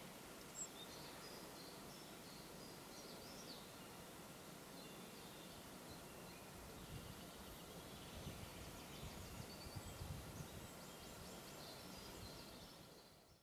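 Faint open-air ambience with distant birds chirping now and then, close to silence; it fades out near the end.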